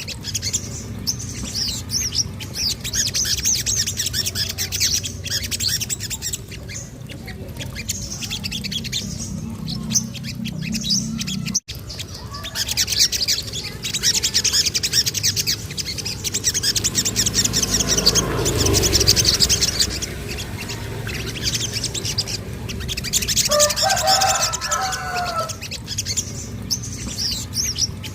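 Small songbirds singing in fast, high-pitched chirping trills, with a brief cut in the sound just under halfway through and some lower warbled phrases near the end.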